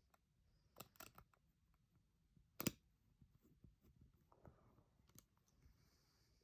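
Near silence broken by a few faint, sharp clicks of a small Torx screwdriver and tiny screws being fitted into a Ridge wallet's metal plate, the sharpest about two and a half seconds in.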